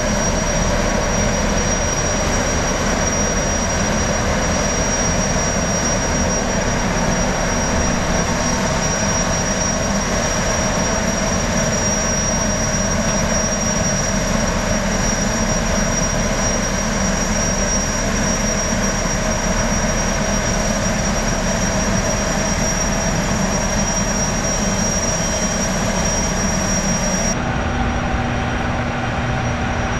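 High-speed jetfoil's gas turbines running at the pier, a steady high whine over a dense hum. Near the end the sound shifts slightly as a second jetfoil is heard under way.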